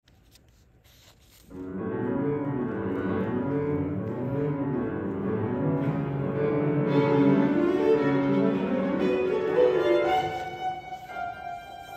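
A violin, cello and piano trio playing live: the strings enter about a second and a half in with low held notes, the violin comes in higher a few seconds later, and the music thins out near the end.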